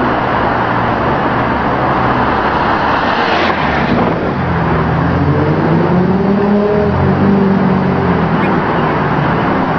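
Chrysler LH-platform sedan's V6 engine at hard throttle as the car passes, loudest about three seconds in, then the engine note climbs in pitch as it keeps accelerating.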